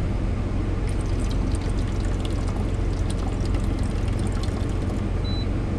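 Euhomy ice maker pumping water in on its fill cycle: a steady pouring trickle over a low hum. Near the end comes a short high beep as the machine flags 'add water', although its reservoir is full: a false low-water fault.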